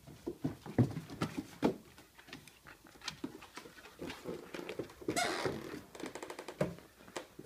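Two whippets' claws and paws clicking and scrabbling on a bare wooden floor during a tug game with a plush toy: irregular taps and light knocks throughout, a brief rustling burst about five seconds in, then a quick run of clicks, about ten a second, near the end.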